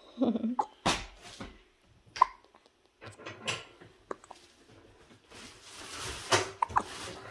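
A baby hiccuping: a few short, sharp hiccups, one about two seconds in and two in quick succession near the end. Between them comes a stretch of rustling and a knock from handling.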